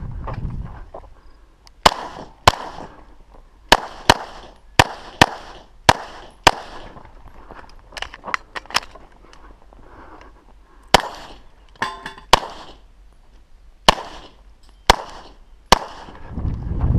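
Pistol shots fired in quick pairs and singles during a stage run, about sixteen sharp cracks spaced from a fraction of a second to a couple of seconds apart. About twelve seconds in there is a brief metallic ring.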